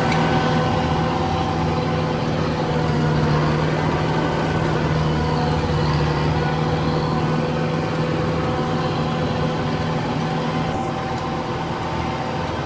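Tractor engine running steadily at working speed while mowing, a constant drone with a strong low hum.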